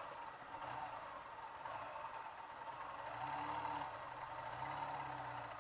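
Ural sidecar motorcycle running along the road, a low steady engine and drivetrain sound that swells slightly twice in the second half.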